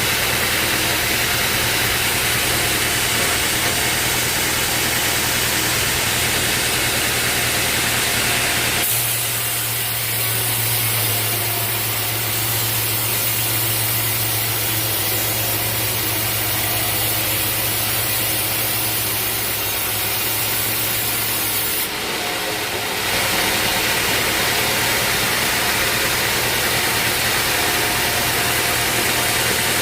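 Portable sawmill running, its engine humming steadily while the saw cuts through a teak log. The sound shifts abruptly about a third of the way in to a steadier, deeper hum with less hiss, then shifts back about three quarters of the way through.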